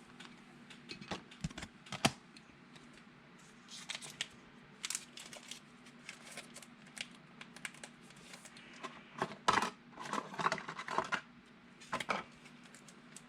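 Trading cards being handled and sorted: scattered light clicks and short rustles, with one sharp click about two seconds in and a busier patch of rustling about nine to eleven seconds in.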